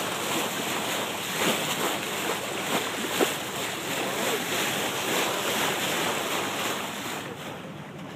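Water rushing and splashing along the bow of a moving boat, with wind buffeting the microphone; steady, easing a little near the end.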